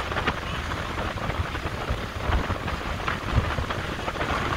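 Strong gusty wind buffeting the microphone in a heavy, uneven rumble, over the steady wash of waves breaking on a sandy lake shore.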